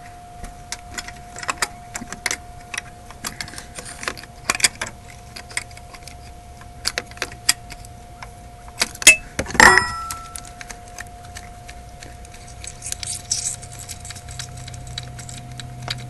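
Wrench clinking and clicking against metal while loosening the ICP sensor on a 6.0L Powerstroke diesel, in scattered irregular taps, with one louder clank a little past the middle. A faint steady tone sits underneath.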